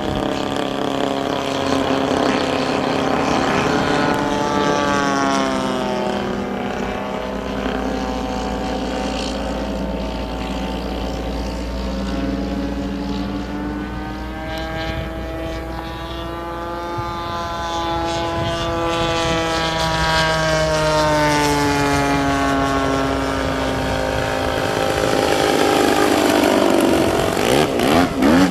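Gasoline engine of a large radio-controlled model airplane flying overhead, its note rising and falling repeatedly with throttle changes and passes.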